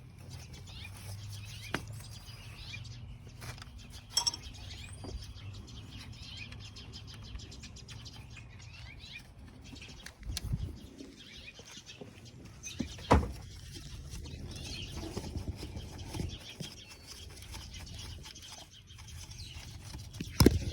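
Scattered light clicks and knocks of hand work on a car's power steering inlet hose fitting as its bolt is threaded in by hand, against a low steady hum; the sharpest knock comes about 13 seconds in.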